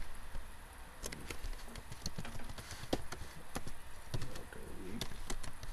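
Typing on a computer keyboard: uneven key clicks, about two a second.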